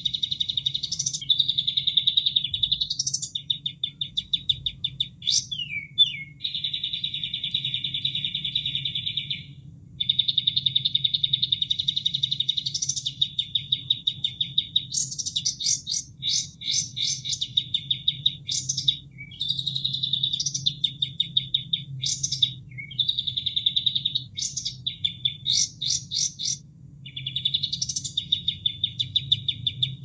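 Kapas tembak bird song: long rapid trills held at one high pitch for a few seconds at a time, broken by quick rising and falling whistled notes and runs of short sharp notes. Under it runs a steady low sound of running water.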